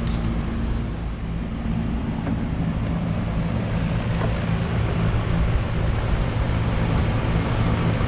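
Vintage central air conditioner condensing unit running: a steady hum of the compressor and condenser fan, with a low multi-tone drone and even airflow noise.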